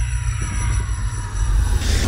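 Cinematic sound design for an animated logo intro: a deep rumble slowly building under several slowly falling tones, with a hissing swell rising in near the end.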